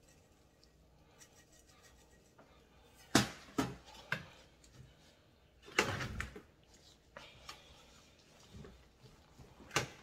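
Quiet room tone, then a few sharp knocks and clatters: a cluster about three to four seconds in, a stronger clatter around six seconds, and one more near the end. These are metal kitchen items, a spice shaker and a sheet pan with a wire rack, being handled on a stainless steel counter.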